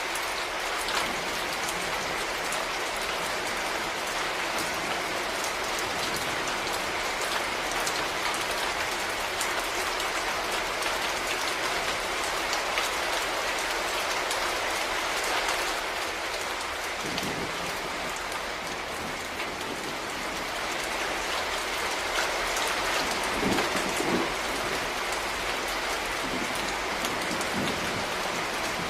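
Steady rain falling, with separate drop hits audible through the even hiss and a few brief low thuds in the second half.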